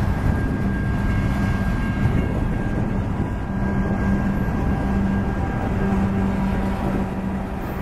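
Slow freight train passing close by: a steady rumble of autorack cars rolling on the rails, joined by the steady low hum of a GE AC4400CW diesel-electric locomotive as it draws alongside.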